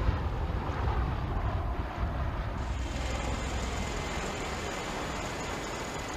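MV-22 Osprey tiltrotor flying low overhead in helicopter mode: a steady low rumble of its rotors and turbines with a rushing noise over it. A thin high whine joins about two and a half seconds in.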